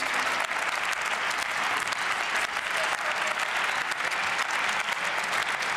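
Applause from members of parliament: many people clapping steadily, the claps blurring into an even patter.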